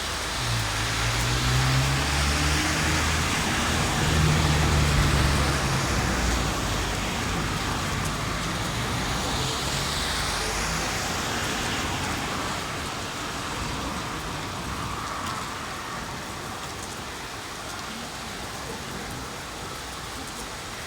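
Rain falling steadily, with a low engine-like rumble in the first six seconds or so, loudest around four to five seconds in, that then dies away.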